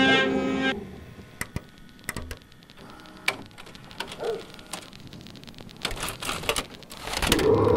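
Music cuts off about a second in, then the scattered clicks and clunks of a Sansui TV/VCR combo's buttons and tape mechanism as it is operated. Near the end a rush of noise swells up loudly.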